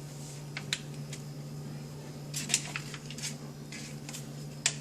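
A few light taps and clicks of a packet and utensils against a small bowl as powdered marinara sauce mix is emptied into it, over a steady low hum.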